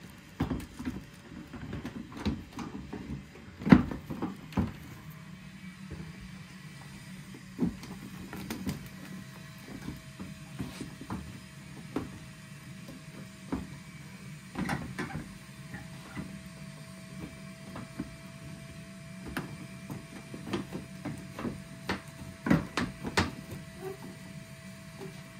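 Irregular clicks and knocks of a replacement headlight assembly being handled and set into place in a car's front end, with one sharper knock a few seconds in. A steady low hum runs underneath.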